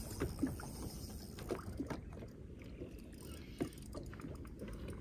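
Small waves lapping and slapping against a bass boat's hull in soft, irregular splashes, over a low steady rumble of wind on the microphone.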